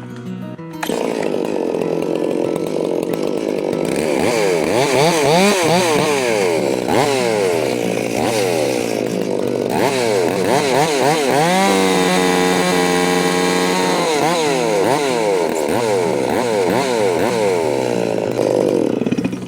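Two-stroke chainsaw running and revved up and down over and over, then held at a steady high speed for about two seconds past the middle. It starts about a second in and cuts off near the end.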